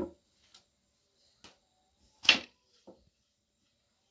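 Thin wooden rolling pins knocking against round wooden bread boards as flatbread dough is rolled and lifted. There is a sharp knock at the start, a few light taps, and the loudest knock a little over two seconds in.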